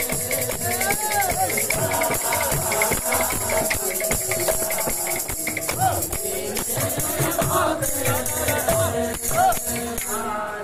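Devotional kirtan music played live: a two-headed barrel drum beaten in a fast rhythm and brass hand cymbals clashing steadily, with a male singer's voice over a microphone and a steady held tone underneath.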